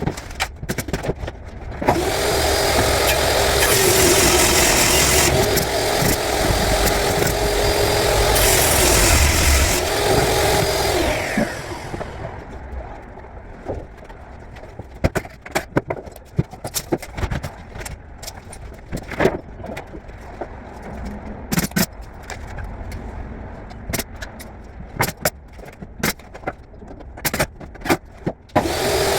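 An electric power tool runs steadily at a high pitch with a strong hiss for about ten seconds, then spins down. Scattered sharp knocks and clicks of wood and tools being worked follow.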